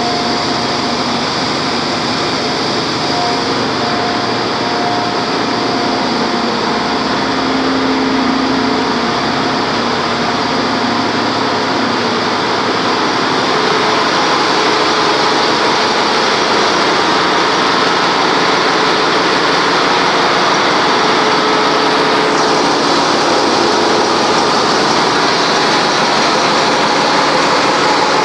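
Loud, steady din of a ship's engine room: diesel engines, pumps and other machinery running together, with several steady whining tones over the roar. It grows slightly louder about halfway through.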